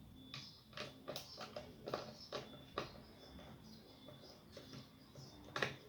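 Irregular clicks and knocks of hands and a screwdriver working on a Logitech speaker's plastic casing during disassembly. Several come close together early on, and the sharpest knock comes near the end.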